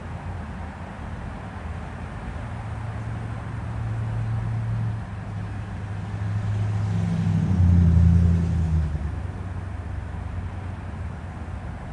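Craftmade Decorative ceiling fan with a 153x8 mm spinner motor running, giving a steady low hum with air noise. A louder low humming swell builds about six seconds in, peaks around eight seconds and fades a second or so later.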